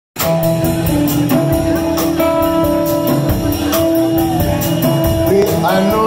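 Live blues band playing an instrumental opening: long held harmonica notes over electric guitar, upright bass and drums, with an even cymbal beat, and sliding notes near the end.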